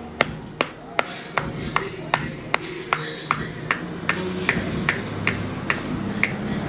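Repeated mallet strikes on a brake caliper, steady and even at about two and a half a second, each a sharp knock with a brief ring. The blows tap a seized caliper piston back into its bore.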